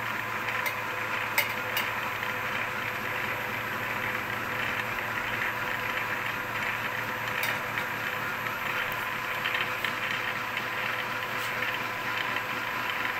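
Milling machine running a gear cutter through a tooth space of a 4340 chromoly steel gear blank at finish depth: a steady machining drone with a constant hum, and a few sharp ticks.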